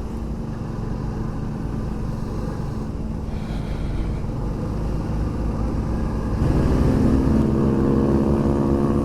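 Motorcycle engine running under way, with road and wind rumble. About two-thirds in, the engine note becomes louder and more clearly pitched, and holds steady.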